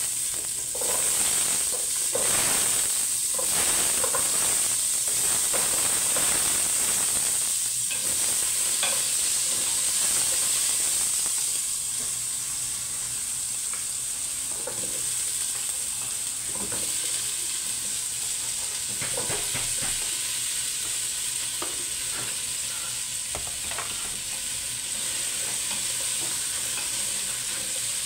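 Diced carrots, potatoes and tomatoes sizzling as they fry in hot oil in a stainless steel pot, with a wooden spatula knocking and scraping against the pot now and then. The sizzle is loudest in the first dozen seconds, then settles a little softer.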